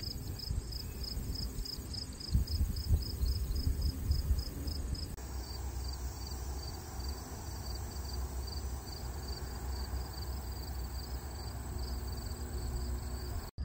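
An insect chirping in an even rhythm, about three to four short high-pitched chirps a second, growing fainter about five seconds in. A steady low rumble sits underneath.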